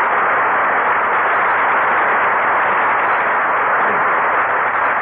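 Radio sound effect of blizzard wind: a steady, loud rushing noise.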